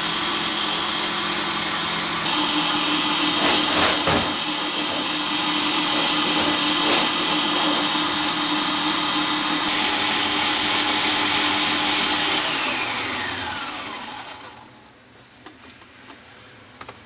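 Electric stand mixer running with its wire whisk beating warm chocolate pastry cream in a steel bowl: a steady motor whine that speeds up about two seconds in and again near ten seconds. It then winds down with a falling pitch and stops about fifteen seconds in, followed by a few faint knocks.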